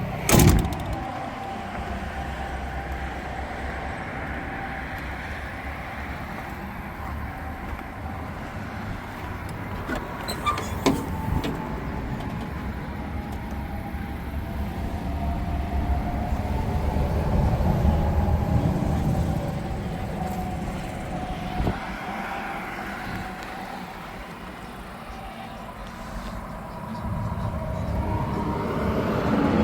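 An engine running steadily, with a sharp knock about half a second in and a few lighter clicks about ten seconds later.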